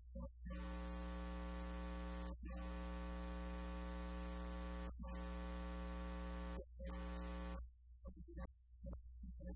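Steady electrical buzz of mains hum on the audio feed, a fixed low drone with many evenly spaced overtones. It cuts out for an instant every couple of seconds and breaks up raggedly near the end.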